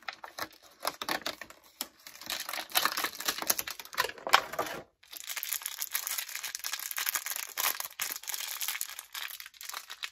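Crinkly plastic packaging being handled and torn: a toy blind-box door is pulled open and a small figure in a green plastic wrapper is crinkled and unwrapped. The crackling breaks off briefly about five seconds in.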